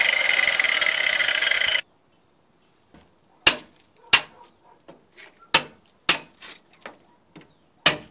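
An angle grinder with a toothed diamond disc runs cutting into a concrete-block wall and cuts off about two seconds in. After a short silence, a club hammer strikes a steel chisel chipping out the block, a sharp clink roughly every half second, some blows harder than others.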